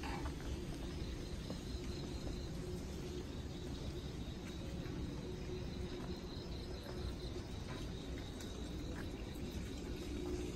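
Crickets chirping in a steady, evenly pulsed high trill, over a steady low background rumble.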